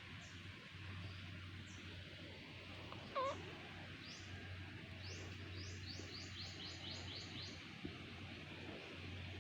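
Small birds chirping: scattered quick high chirps, then a rapid run of repeated chirps for about two seconds past the middle, over a low steady hum. A brief, louder call about three seconds in.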